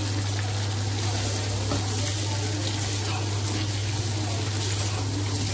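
Chicken pieces and freshly added whipped yogurt sizzling in hot ghee in a pot, stirred with a wooden spoon, with a steady low hum underneath.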